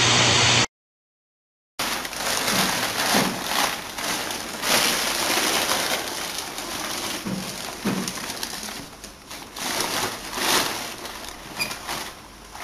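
A short burst of TV-static hiss that cuts to silence, then a large plastic bag crinkling and rustling as a cardboard parcel is lifted out of it and handled.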